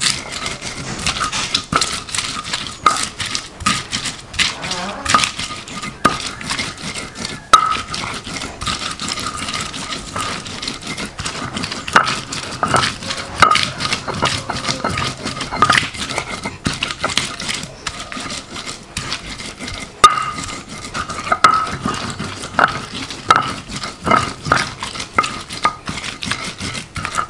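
Spice paste of shallots, garlic, chilies, ginger and turmeric being ground fine by hand: irregular knocks and scrapes, with a light ring on some of the strikes.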